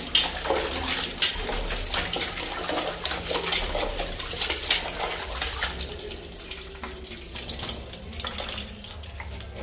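Hands washing chopped raw goat meat in a steel bowl of water: water sloshing and splashing with many short wet splashes, busier at first and softer from about six seconds in.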